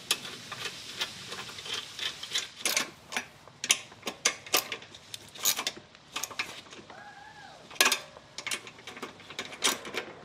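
Socket ratchet clicking in irregular runs of quick strokes as the bolts holding a lawn mower's carburetor to the engine are driven in.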